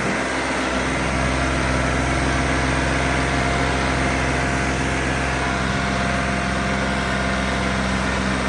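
Diesel engine of a New Holland 3630 tractor running steadily under load as it pulls through loose, dusty soil, its engine note holding even with no change in speed.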